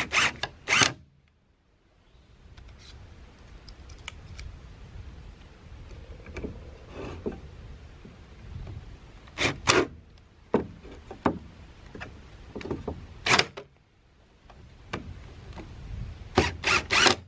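Cordless drill driving screws through a steel strap hinge into a wooden block: the motor whirs in runs, with sharp clicks and knocks between them.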